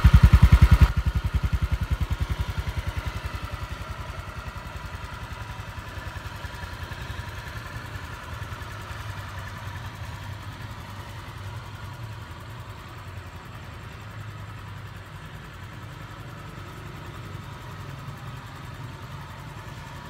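Honda Vario 150 scooter's single-cylinder engine idling evenly with a regular beat after an engine rebuild, running well. Louder for the first second, then quieter and steady.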